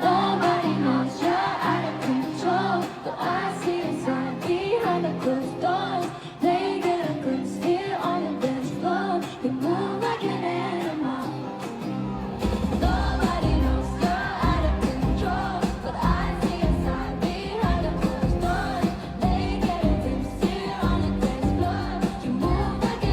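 Pop song with female group vocals. The sung melody runs throughout, and heavy bass and drums come in about halfway through.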